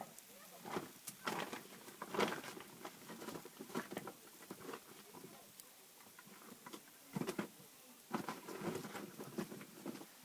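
Open wood fire being tended: irregular crackles and clicks in a few short clusters, about a second in, near the middle and again toward the end.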